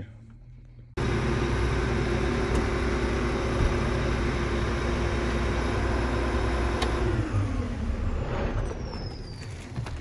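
John Deere S660 combine's diesel engine running steadily, starting abruptly about a second in. About seven seconds in a click is followed by the engine note falling away as it shuts down, with a high turbocharger whine slowly dropping in pitch as it spins down.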